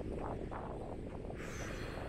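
Outdoor background noise: a steady low rumble with faint scattered sounds above it.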